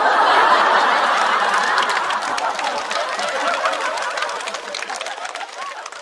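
Studio audience laughing hard, with clapping mixed in, starting loud right after a punchline and slowly dying down.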